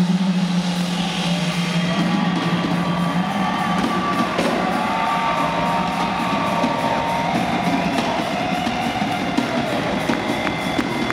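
Live rock band playing: electric guitar and drum kit, with a held low note at first, then a wavering sung or guitar melody line and steady drum hits near the end.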